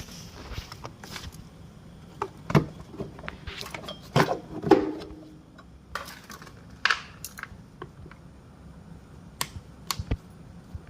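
Metal hand tools and parts clinking and knocking at irregular intervals during motorcycle servicing, the loudest knocks bunched a little before the middle.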